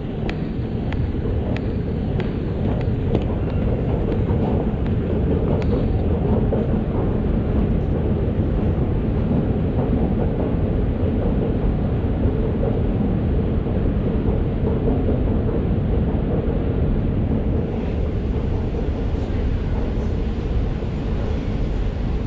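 Steady low rumble of ambient noise from the walk into a railway station, with light regular footsteps about every half second or so during the first few seconds.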